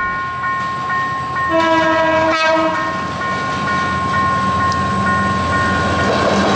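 Diesel passenger train approaching a level crossing while the crossing's warning bell rings steadily. About a second and a half in, the locomotive sounds one horn blast lasting about a second and a half, and then the engine and the rumble of the train grow louder toward the end.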